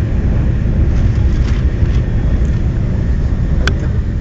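Cabin noise of a TGV Atlantique high-speed train running at speed: a steady, loud low rumble with hiss above it, and a single sharp click about three and a half seconds in.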